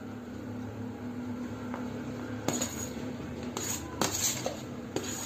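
A metal spoon and a serving tray clinking against an aluminium cooking pot as steamed rice is scraped into it. There are a few sharp clinks in the second half over a faint steady hum.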